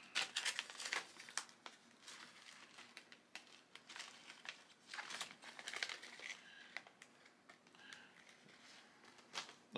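Packaging crinkling and rustling as it is handled, in irregular spells that are densest in the first second and again around four to six seconds, thinning to faint rustles later on.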